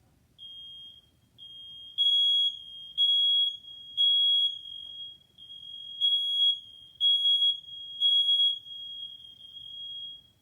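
Smoke alarm sounding on its test button: one shrill high tone starts about half a second in, softer at first, then rises into loud beeps in two groups of three, the temporal-three alarm pattern, and cuts off near the end.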